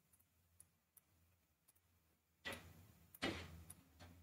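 Near silence: room tone with a few faint clicks, and two short, soft knocks about two and a half and three and a quarter seconds in.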